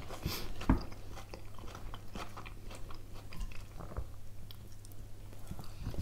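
Chewing and crunching of Caesar salad with croutons and iceberg lettuce, in irregular small crunches, with one louder crunch just under a second in.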